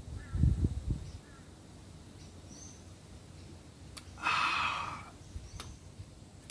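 A few low gulps as a mouthful of lager is swallowed, then a breathy exhale about four seconds in. Faint bird chirps behind.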